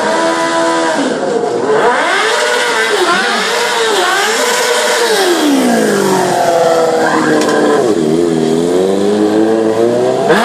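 Sport motorcycle engine being revved hard and let fall again and again under stunt riding, its pitch swooping up and down every second or two, with a sharp rev up near the end.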